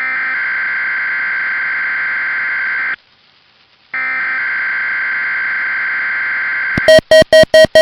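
Weather-radio emergency alert tone: two steady electronic tones about three seconds long with a one-second break between them. Near the end, a loud, rapid beeping starts, about seven beeps a second.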